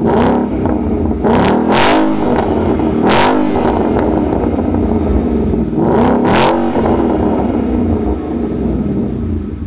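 Ford Mustang GT 5.0 V8 through a Roush axle-back exhaust with hollow-chambered mufflers and the factory resonator still in place, free-revved while parked. It blips sharply up and back down about four times, then settles to a steady idle in the last few seconds.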